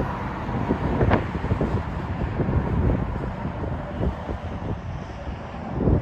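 Wind buffeting the microphone: an uneven low rumble with sharper gusts about a second in and again near the end.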